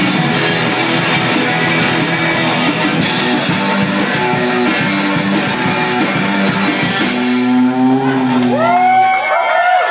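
Indie rock band playing live, electric guitars and drum kit. About seven seconds in the drums stop and a low chord is held as the song ends, then swooping, rising-and-falling tones come in near the end.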